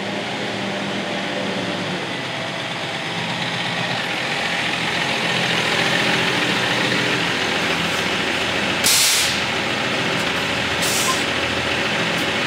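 Semi-truck tractor's diesel engine running as the truck creeps forward, growing louder as it comes closer. Two short air-brake hisses come about nine and eleven seconds in.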